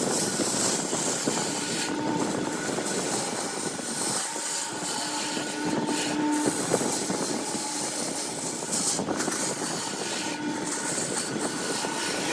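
Wood lathe running, with a turning tool cutting the spinning wood: a steady hissing scrape with faint tones that come and go.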